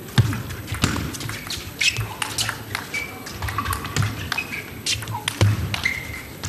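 Table tennis ball clicking sharply and irregularly off the bats and table. Several short squeaks, typical of shoes on the court floor, come between the clicks.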